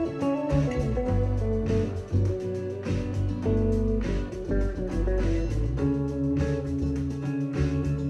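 Background music: a guitar-led instrumental with bass and a steady drum beat.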